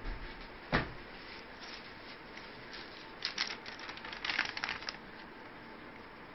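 Paper crinkling and rustling in two short bursts of crisp crackles as a printed bill is handled, after a single sharp click about a second in.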